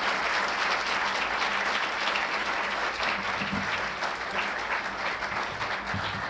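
Audience applauding steadily, easing off a little in the second half.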